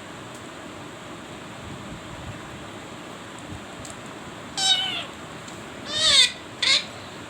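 Parrot giving three loud calls, each falling a little in pitch, in the second half; the last two come close together. A steady hiss lies underneath.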